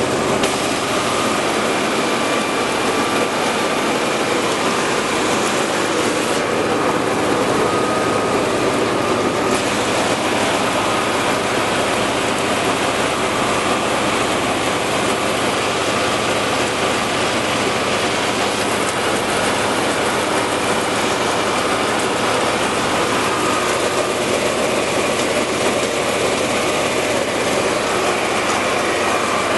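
5XZD-15AC grain cleaner and grader running steadily, grain rushing across its sieve decks in a continuous mechanical din with a faint steady whine.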